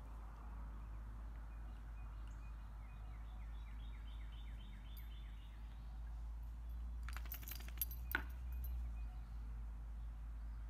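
Outdoor ambience over a low steady rumble. A bird trills a fast run of short descending notes a few seconds in. At about seven seconds a brief cluster of light metallic jingling clicks sounds, typical of a dog's collar tags, with one more click just after.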